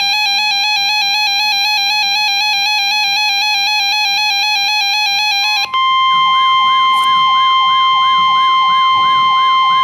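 Weather radio alert tones for a Severe Thunderstorm Warning. For about five and a half seconds an electronic warbling alarm tone sounds, then it switches to the steady single-pitch warning alarm tone of NOAA Weather Radio (near 1 kHz), with a siren-like sweeping tone repeating about twice a second beneath it.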